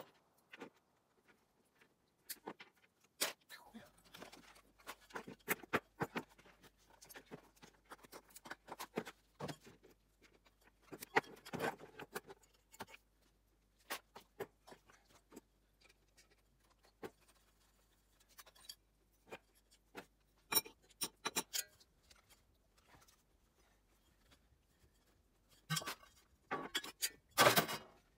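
Scattered clicks, clinks and taps of hand tools and small metal lamp parts being handled as a table lamp is taken apart for scrap, with a louder run of knocks near the end.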